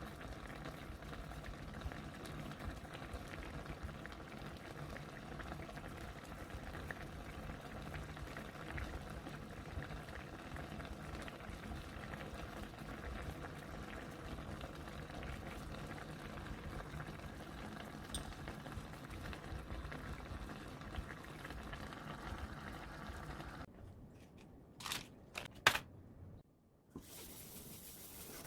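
A pot of liquid boiling steadily on the stove, bubbling throughout, which cuts off suddenly near the end and is followed by a few sharp clicks.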